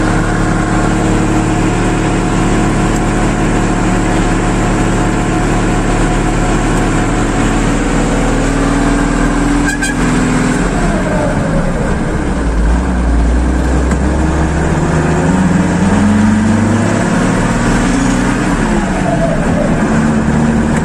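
Truck engine and exhaust running with a steady low drone for about ten seconds. There is a knock about ten seconds in, after which the engine pitch rises and falls as the revs change.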